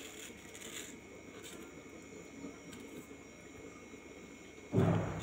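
Soft, faint scraping of a serrated knife peeling the skin off a ripe mango over a steel bowl, a few light strokes with a steady faint hum behind. Near the end a brief, much louder low sound cuts in.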